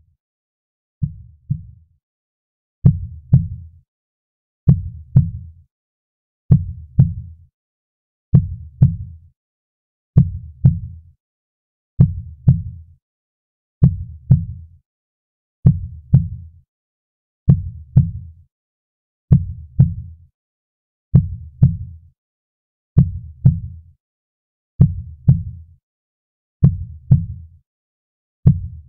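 A slow, steady heartbeat: low paired lub-dub thumps repeating about every two seconds, with silence between beats. The first beat or two are softer before the rest come in at full strength.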